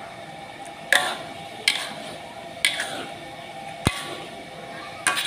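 Sharp clicks about once a second, one very sharp near the end, from a wok of fish curry simmering in thick tempoyak gravy, over a faint steady hum.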